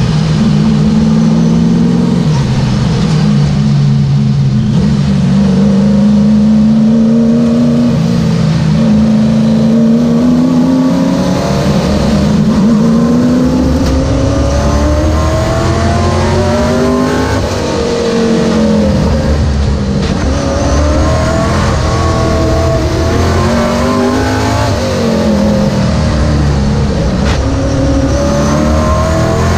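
Late model race car's V8 engine running hard at speed, its note climbing in long glides and dropping back several times as the throttle is worked on and off. The sound is heard from a camera mounted by the right-front wheel.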